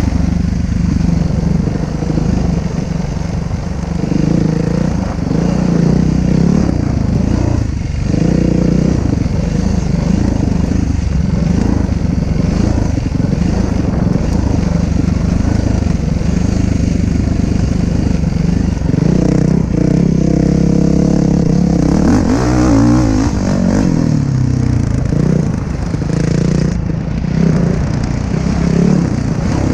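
Yamaha dirt bike engine running as the bike is ridden along a dirt trail, its pitch rising and falling with the throttle, with the most marked revving about twenty seconds in. Heard through a helmet-mounted camera.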